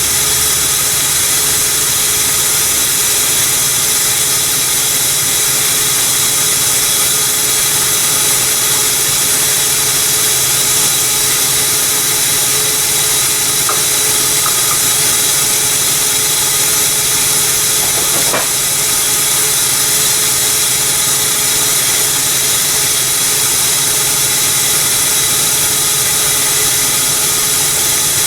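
A steady, loud machine noise with a strong hiss that does not change, with a few faint clicks past the middle.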